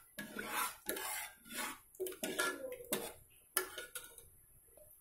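A spoon stirring dal in an aluminium pressure cooker, scraping and knocking against the pot in a run of irregular strokes that stop about four seconds in.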